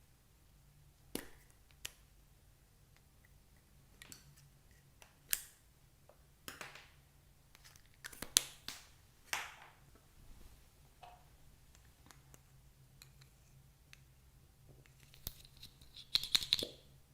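Scattered clicks, taps and short scrapes of small objects being handled, with a quick cluster of clicks and a brief squeak near the end.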